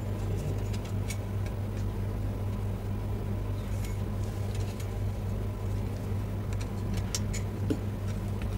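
Steady low hum with a few faint small clicks and ticks, most of them about seven seconds in, as the top panel of a Beosound Explore speaker is gently pried off.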